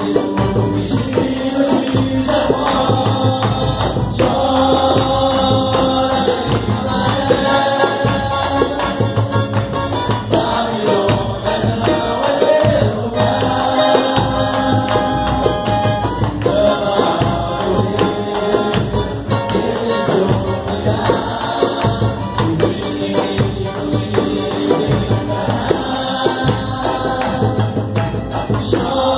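Live samba (pagode) group: men singing a melody in phrases over a steady samba rhythm on pandeiro with jingles, a tantã hand drum and strummed cavaquinho.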